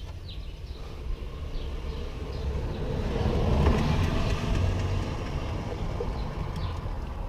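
A vehicle passing by, its noise swelling to a peak about halfway through and then fading, with a few bird chirps.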